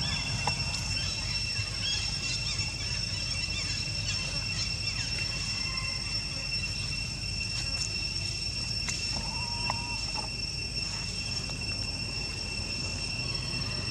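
Steady high-pitched insect drone, with a low background rumble and a few faint chirps.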